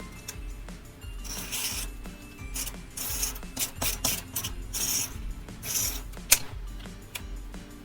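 Paper being rubbed and scratched by hand while decorating a journal page: four or five short rasping strokes, with a sharp tap about six seconds in. Soft background music plays underneath.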